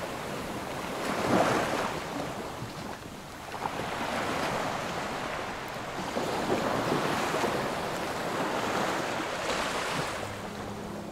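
Sea waves breaking and washing onto a sand and shingle beach, rising and falling in several surges, the loudest about a second and a half in.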